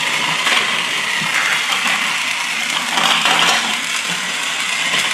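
Battery-powered Thomas & Friends TrackMaster toy train engines running along plastic track, their small geared motors whirring steadily.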